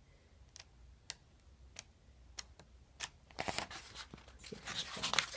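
Paper pages of a softcover workbook being turned, with a sharp flick about every half second. From about three seconds in, this gives way to a denser rustle of pages being handled.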